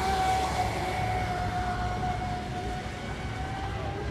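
Radio-controlled speedboat running at speed across the water, its motor giving a steady high whine that dips a little in pitch and fades toward the end.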